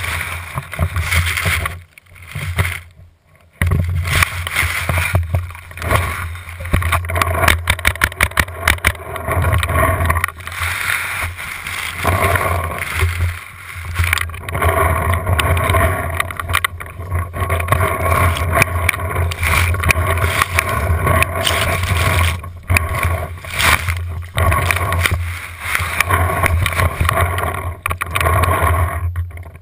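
Tall grass rustling and scraping against a camera mounted on a paintball marker's barrel, with a steady low rumble and many short knocks from the gun being handled and moved through the grass.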